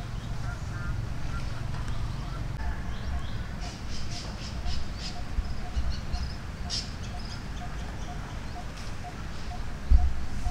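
Forest ambience with a bird repeating a short note about twice a second, and dry leaf litter crackling in bursts as a long-tailed macaque walks over it. A dull thump near the end.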